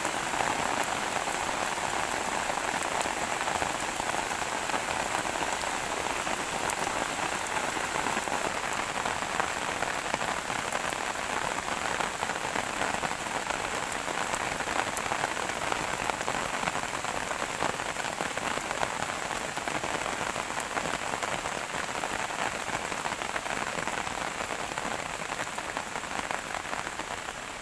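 Steady rain falling on a surface, a dense, even patter of drops that eases slightly near the end.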